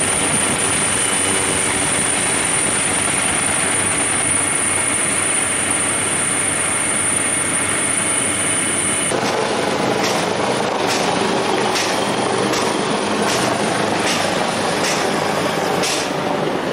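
Loud, steady helicopter noise with a high turbine whine. About nine seconds in the whine stops and the noise changes, with a run of sharp knocks every half second or so.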